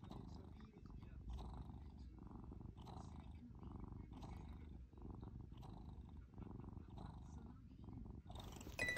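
A brown tabby cat purring close to the microphone, a low steady rumble that swells and eases with each breath, about once a second. Music comes in near the end.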